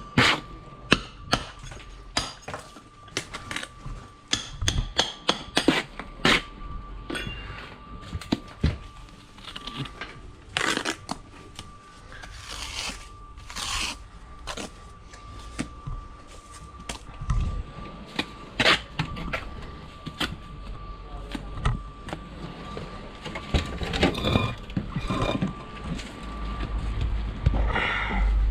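Concrete blocks being laid: irregular sharp knocks and clicks of a trowel and blocks tapping into place, with a few longer scrapes. A thin steady whine runs underneath.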